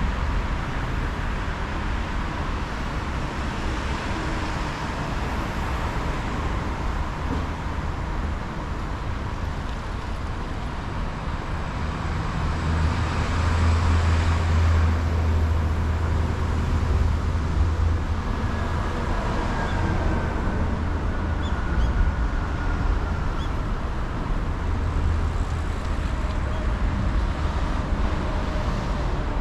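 Steady road-traffic noise, with a low rumble that swells for several seconds about halfway through.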